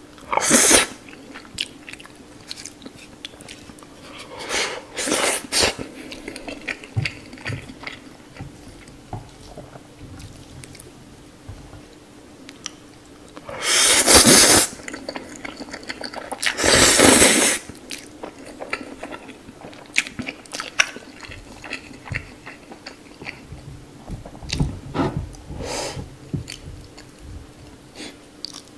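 Instant noodles slurped into the mouth in four loud slurps, the two near the middle longest at about a second each, with wet chewing and small mouth clicks between them.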